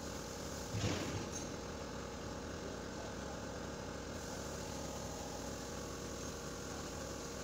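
A steady machine hum, like a motor running, with one short knock about a second in.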